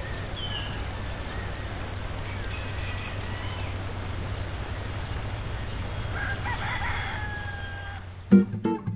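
A rooster crows a few times over a steady background hiss and rumble, the longest crow about six to seven seconds in. Acoustic guitar strumming starts near the end.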